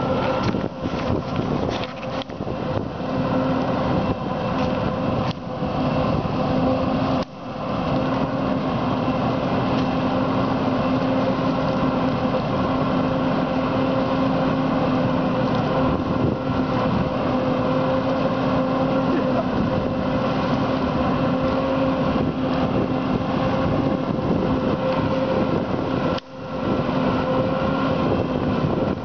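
Self-propelled forage harvester chopping maize for silage, with a tractor hauling the silage trailer alongside: a steady machine drone that holds one pitch, dipping briefly twice.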